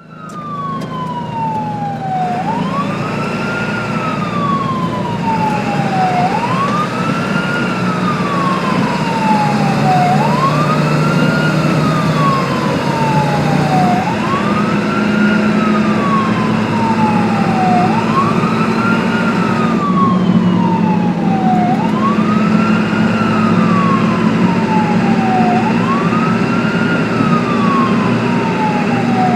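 Ambulance siren on a slow wail: the tone rises quickly and falls slowly, repeating about every four seconds, over the steady low drone of the vehicle's engine. It fades in at the very start, and the engine note shifts in pitch twice.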